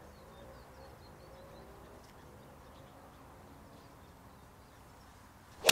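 A 9-iron striking a golf ball on a full swing: one sharp crack near the end, over a quiet outdoor background with a few faint bird chirps.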